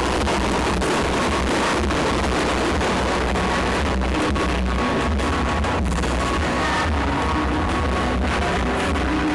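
Loud music with strong bass playing over a stadium sound system, with repeated firework bangs and crackles cutting through it.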